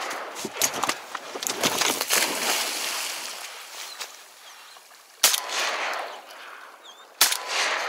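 Shotgun shots at ducks: two sharp reports about two seconds apart in the second half, each trailing off in a long echo. The first couple of seconds hold a noisier run of cracks and echo from more shooting.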